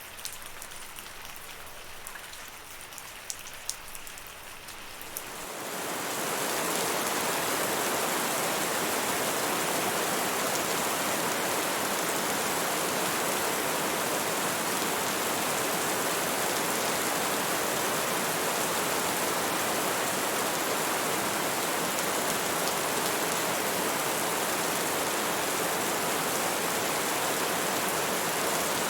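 Rain: for the first few seconds a lighter shower with separate drops ticking, then about five seconds in it swells into a steady, dense downpour hiss.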